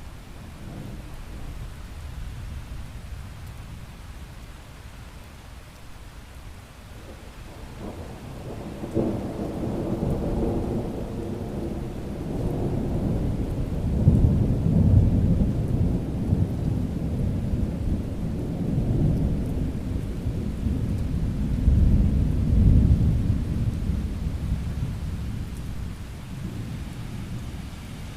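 Rain falling steadily, with a long roll of thunder that builds about a third of the way in, swells to two peaks, and fades away near the end.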